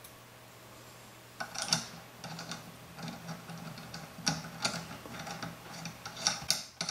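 Small, irregular metallic clicks and rattles from a spring collet, collet nut and end mill being handled and threaded by hand onto a collet chuck on a small router spindle. They start about a second and a half in.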